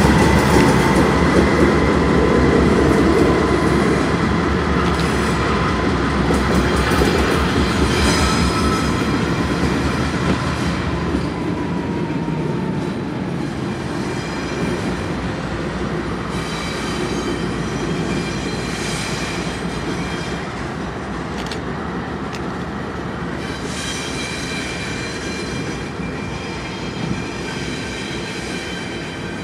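Norfolk Southern GE Dash 9-40CW diesel locomotives moving away along the track. Their engine drone and wheel rumble fade, the low rumble dropping off about eleven seconds in, with thin steady squeals of steel wheels on the rails throughout.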